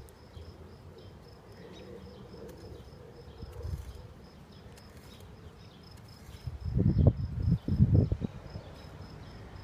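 An insect chirping steadily in a high, evenly repeated pulse, while a garden hoe scrapes and chops through soil and grass, loudest in two bouts near the end.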